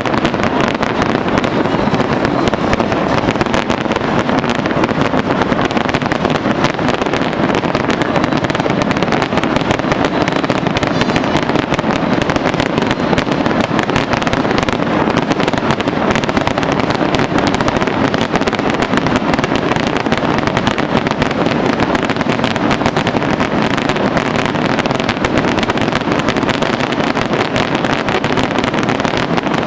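Dense barrage of aerial fireworks: rapid bangs and crackling running together without a pause.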